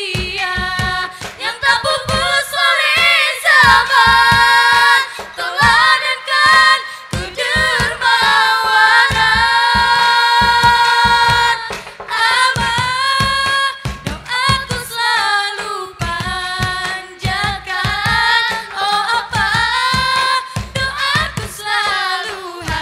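A girls' nasyid group singing an Islamic devotional song into microphones, with one long held note about eight seconds in, over steady percussion beats.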